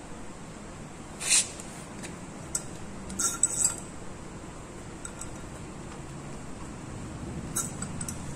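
Glass laboratory beakers and a pH electrode clinking lightly as they are handled. There is one sharp clink about a second in, a small cluster of clinks around three seconds, and another near the end, over a low room hum.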